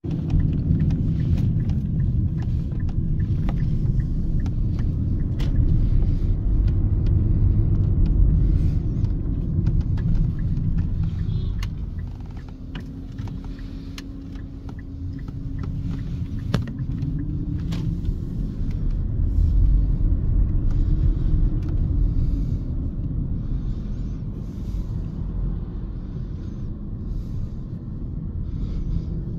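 Low rumble of a vehicle in motion, heard from on board, with road and wind noise; it eases for a few seconds around the middle, then rises again.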